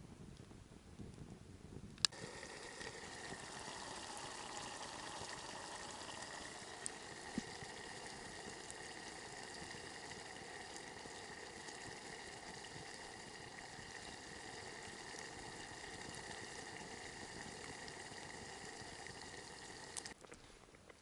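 Chili con carne simmering in a pot over a campfire, a steady bubbling hiss with a few small crackles. It starts abruptly about two seconds in and stops just as abruptly about a second before the end.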